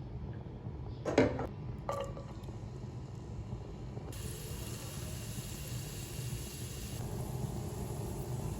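Two sharp knocks of kitchenware about a second apart, then a steady hiss of liquid starting about four seconds in and continuing.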